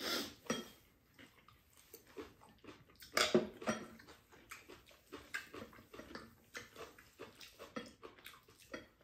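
Eating at a table: spoons and chopsticks tapping and scraping ceramic bowls, with chewing, and a short louder sound about three seconds in.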